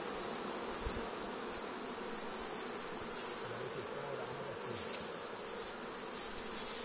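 Honeybee swarm buzzing in a steady, even hum around an open hive box as the swarm is being hived.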